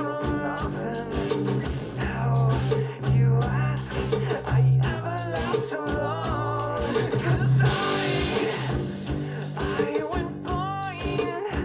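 A song with guitar and singing played back through small studio monitor speakers for a sound test.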